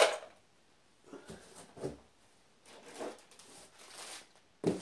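Handling noises while unpacking: a sharp knock right at the start as a charger is set down on the floor by the training wheels, then scattered light rustles and bumps, and a dull thump near the end.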